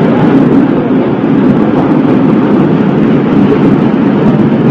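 Waste yarn fibre recycling shredder and its dust-removal blower running: loud, steady machine noise with no clear rhythm.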